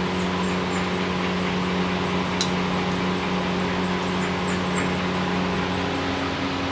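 Steady hum of a running machine, with several held low tones over an even hiss, like ventilation or air conditioning; a faint click about two and a half seconds in.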